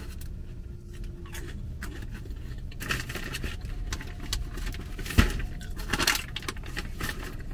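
Crinkling, rustling and light clinking as things are handled and moved inside a car, with one sharper knock about five seconds in, over a low steady rumble of the car.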